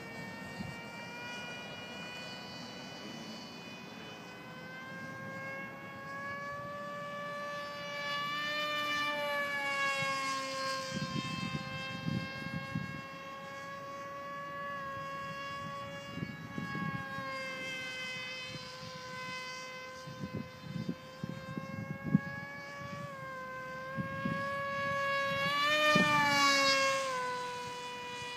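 Electric motor and 6x5 propeller of a Tuffwing 32 RC flying wing (2826-6 2200kv brushless motor) whining in flight. The pitch rises and falls with throttle, and the whine swells as the plane passes close about a third of the way in and again near the end, dropping in pitch as it goes by. Patches of low rumble come and go in the middle.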